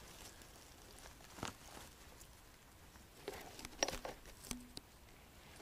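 Faint rustling of forest-floor litter with a few short crackles and snaps, from picking a mushroom out of the moss and leaves.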